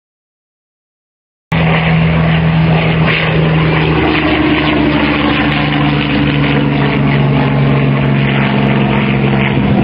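Hawker Hurricane's Rolls-Royce Merlin V12 engine running steadily in flight, starting suddenly about a second and a half in after silence. Wind noise on the microphone comes with it.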